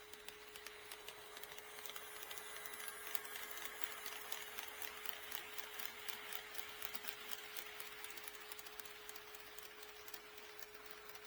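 HO scale model train running on KATO Unitrack, its wheels and motor giving a quick, dense ticking that grows louder about two seconds in and then fades, over a steady faint hum.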